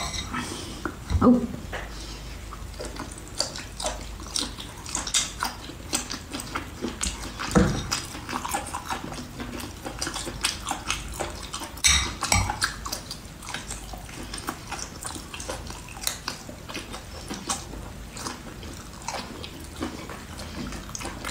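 Close-up eating sounds: irregular wet chewing and slurping with many small clicks and snaps, scattered with no steady rhythm.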